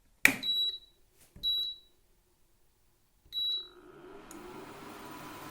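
Induction cooktop's control panel beeping three times, short high beeps each begun by a button click, as it is switched on and set. Near the end its cooling fan starts and a steady whir builds.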